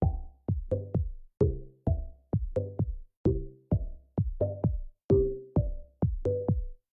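Electronic background music: a steady drum-machine beat with short bass and synth notes.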